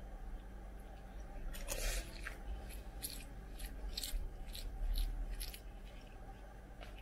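Metal spoon scraping and scooping rice on a ceramic plate: one longer scrape about a second and a half in, then a run of light scrapes and clicks, about three a second.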